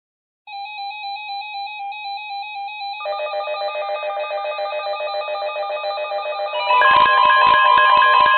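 Weather alert radios sounding their alarms for a severe thunderstorm warning. A warbling electronic alert tone starts about half a second in, a second, lower warbling alarm joins about three seconds in, and near the end a loud steady warning tone comes in over pulsing beeps.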